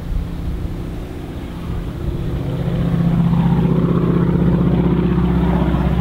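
Schweizer Ag Cat B biplane's Pratt & Whitney R-1340 nine-cylinder radial engine and propeller running in flight, a steady drone that grows louder about two seconds in and then holds.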